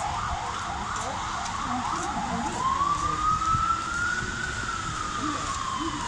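Emergency-vehicle siren: a fast yelp for the first couple of seconds, then a slow wail that rises and falls.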